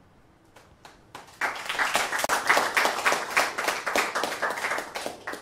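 A small audience applauding: a few scattered claps at first, then brisk clapping from about a second and a half in that stops abruptly just before the end.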